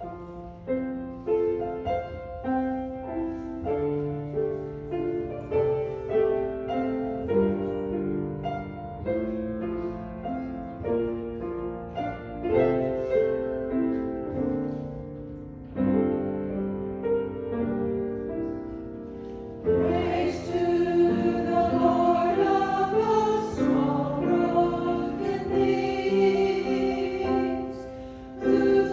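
Church music: a keyboard plays slow, steady hymn-like chords, and about twenty seconds in a choir of voices comes in singing over it, fuller and louder.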